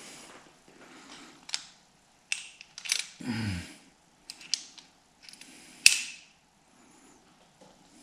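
Hand tools and steel parts clicking and knocking against each other while the timing chain assembly is bolted up on a Jaguar E-Type's XK straight-six engine. There are several sharp metal clicks, the loudest about six seconds in, and a short low sound that slides down in pitch about three seconds in.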